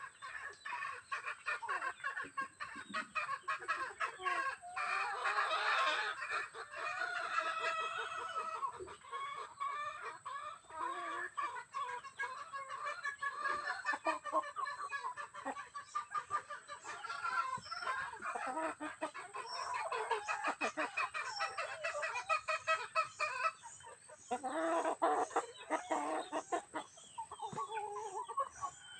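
Chickens and a rooster clucking and calling steadily while feeding, with many short sharp ticks throughout and a longer, stronger call near the end.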